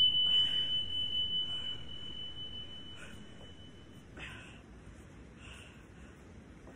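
A single clear chime from a workout interval timer, marking the start of a 40-second work round, ringing on one steady pitch and fading out about four seconds in.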